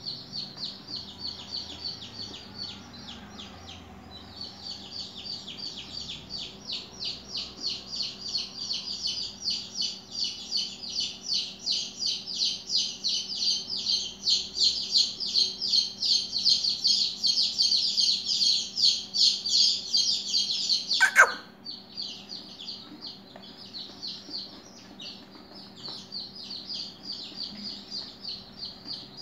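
Rapid, regular high-pitched chirping, several chirps a second, swelling louder through the middle. A sharp click about two-thirds of the way through, after which the chirping carries on more quietly.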